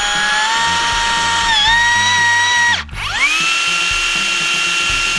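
HiKOKI VB3616DA 36V cordless rebar cut-bender's electric motor whining as it bends a 16 mm rebar toward 180 degrees. The pitch dips briefly under load about a second and a half in; the motor stops just before three seconds in and starts again a moment later, its whine rising quickly to a steady pitch.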